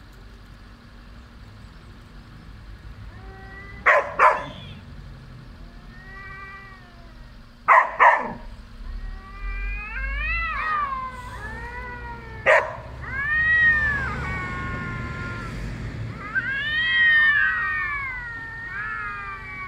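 Domestic cats caterwauling in a standoff: long, wavering yowls that rise and fall in pitch and come more often as it goes on. Three short, sharp, loud bursts break in during the first two-thirds.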